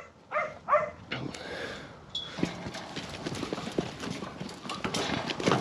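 Lambs' hooves clattering and knocking as the mob runs through a corrugated-iron sheep race, with frequent small thuds and rattles of the metal sides. A working kelpie barks twice in the first second.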